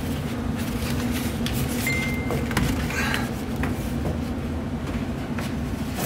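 American Standard furnace blower running steadily, with a few light scrapes and knocks as a cardboard-framed pleated air filter is slid into its slot in the furnace.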